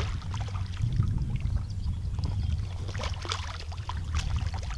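A hooked common carp splashing at the surface as it is played in to the bank, with scattered splashes over a steady low rumble.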